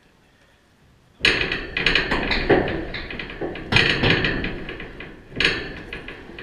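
Loud metallic clattering: something strikes the chain-link backstop fence three times, a little over a second in, at about three and three-quarter seconds and at about five and a half seconds, and each blow sets off a jangling rattle that fades away.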